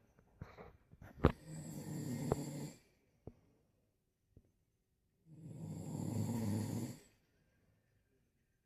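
Snoring: two long, low snores a few seconds apart, with near silence between them. A sharp click about a second in is the loudest moment.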